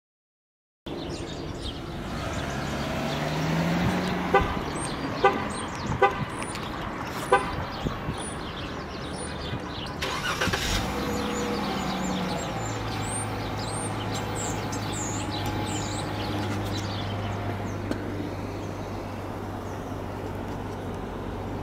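2013 Dodge Charger engine being remote-started: it cranks and flares with a rising pitch, with a few sharp clicks, then flares once more and settles into a steady idle a little past halfway.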